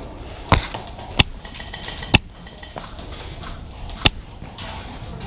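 Airsoft guns firing four sharp single shots at irregular intervals, the last a couple of seconds after the others.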